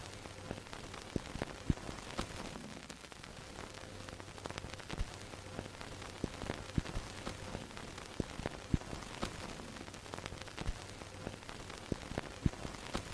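Vintage film projector hum under a steady hiss, with irregular crackles and pops of dust and scratches on old film.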